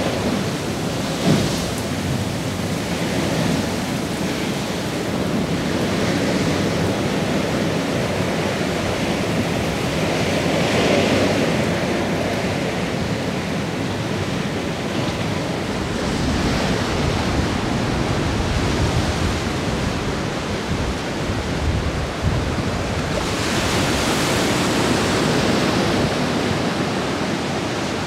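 Ocean surf breaking and washing into a rocky cove: a steady rushing noise that swells louder about eleven seconds in and again near the end, with some wind rumbling on the microphone.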